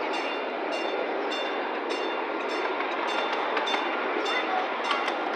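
Miniature ride-on train rolling along its track: a steady rumble of wheels on rail with regular clicks, about two a second, as the wheels pass over rail joints.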